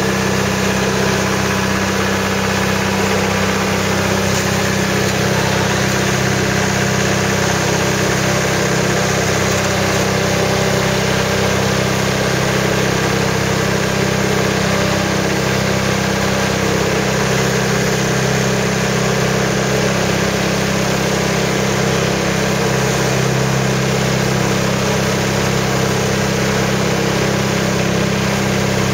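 Motorboat engine running steadily, under a continuous rush of water from its wake.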